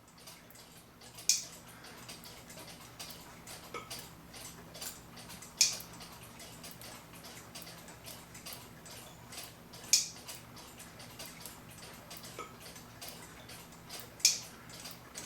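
Small metal clock-movement parts clicking as they are handled. Four sharp, high clicks come about four seconds apart, with fainter ticks between, over a faint steady low hum.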